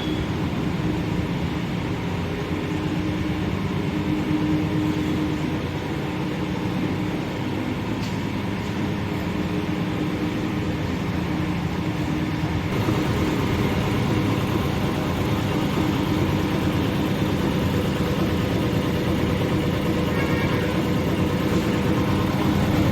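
A motor-driven machine running steadily, a continuous hum with several steady tones underneath that hardly changes in level.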